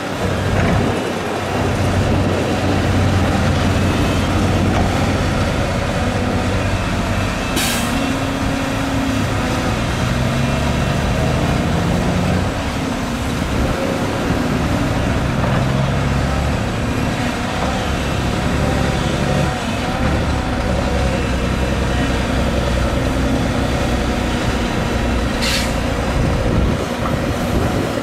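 Diesel excavator working: the engine runs steadily and its pitch rises and falls as the hydraulics take load. Two short, sharp hisses come about eight seconds in and again near the end.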